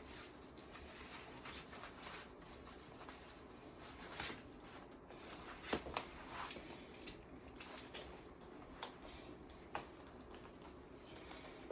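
Faint rustling of clothing with a few scattered small clicks and taps, as a uniform is put on and straightened.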